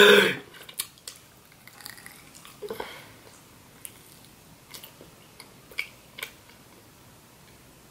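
Close-miked mouth sounds of a person biting into and chewing a blueberry mochi ice cream: sparse, soft wet smacks and clicks. A brief loud burst comes right at the start.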